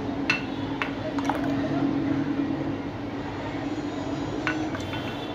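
A ladle clinking against a glass bowl and drinking glass as a thick milk drink is ladled and poured, several sharp clinks in the first second and a half and two more near the end. A low steady hum runs underneath.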